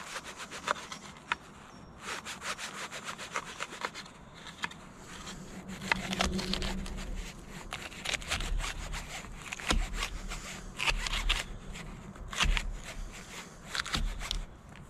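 Kitchen knife slicing through a tomato and a red bell pepper against a wooden log: a fast, even run of cutting strokes, then slower separate cuts, with a low rumble underneath from about six seconds in.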